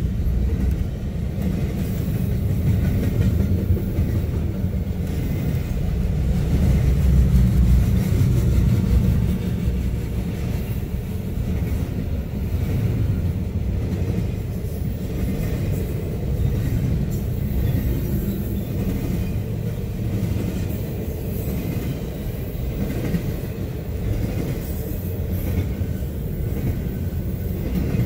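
Double-stack intermodal container cars of a Norfolk Southern freight train rolling past close by: a steady, deep rumble of steel wheels on rail.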